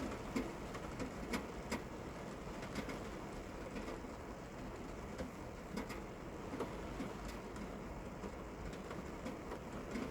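Steady rain with irregular sharp drips striking a hard surface.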